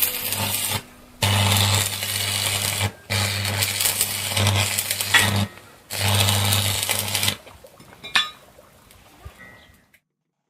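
A small electric motor buzzing in four short bursts of one to two seconds each, followed by a single click.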